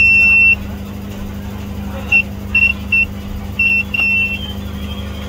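Sunshine DT-9205E digital multimeter's buzzer beeping in short, uneven bursts as the probes touch the circuit board: one longer beep at the start, then five short ones about two to four seconds in. Under it runs a steady low hum, and a fainter wavering tone follows the last beep.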